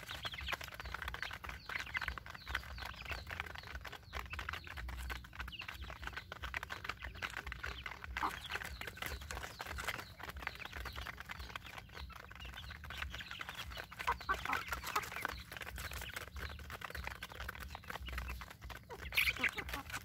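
Young chickens clucking and peeping softly as they feed, with many quick taps of beaks pecking grain from a pan. There is a louder call near the end.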